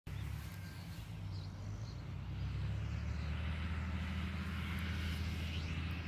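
A steady low engine drone from a distant motor, with a few faint, short, high bird calls over it.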